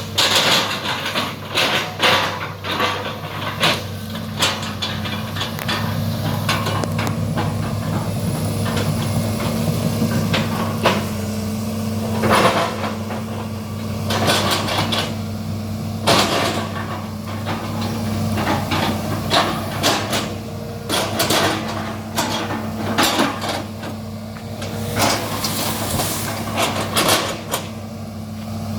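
Excavator's diesel engine running steadily, with repeated sharp knocks and cracks as the bucket chops up palm oil tree trunks.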